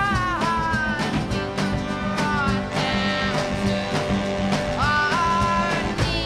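Background music with a steady beat and lead notes that slide in pitch.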